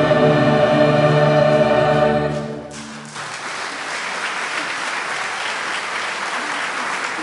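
Choir and wind band holding a final sustained chord, which is released and fades out between two and three seconds in. Audience applause follows and carries on steadily.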